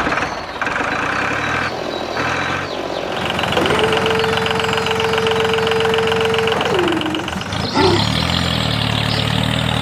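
Tractor engine running steadily, with a steady held tone for about three seconds in the middle that slides in and out, and a heavier low chugging from about two seconds before the end.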